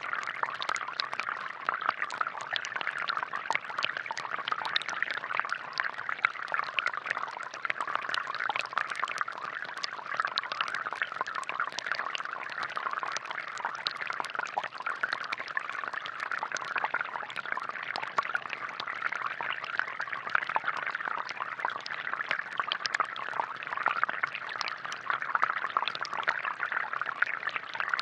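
Water from a homemade plastic-bottle air-pressure fountain splashing and trickling steadily, with many small droplet splashes.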